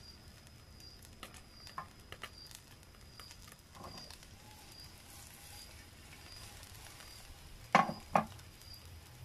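Sliced spring onion in oil in a frying pan over a gas burner, heating up before frying, with a few small crackles and pops. Near the end come two sharp knocks about half a second apart, the loudest sounds.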